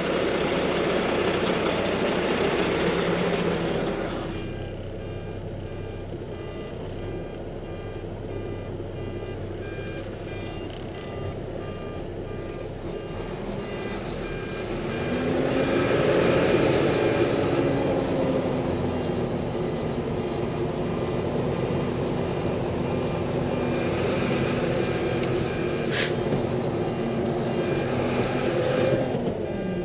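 Heavy diesel machinery running in a muddy pit, with a backup alarm beeping in an even rhythm. The engine gets louder and rises then falls in pitch about halfway through.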